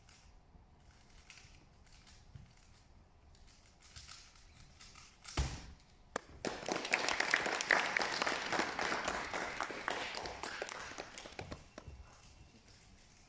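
A 3x3 speed cube being turned rapidly during a solve: a single thump about five seconds in, then about five seconds of dense, fast plastic clicking that stops abruptly.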